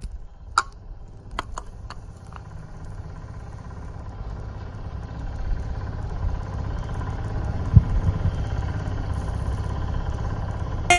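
Metal debris from an exploded nitrous hybrid rocket motor clinking and clanking a few times in the first couple of seconds. After that comes a steady low rumble that grows louder, with one sharp thump about three-quarters of the way through.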